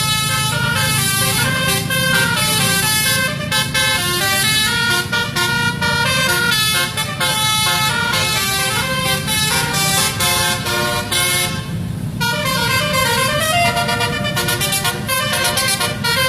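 Basuri melody bus horn (telolet) playing a tune of quick stepped notes over the steady hum of the bus engine. The tune breaks off briefly about twelve seconds in, then comes back with a rising glide.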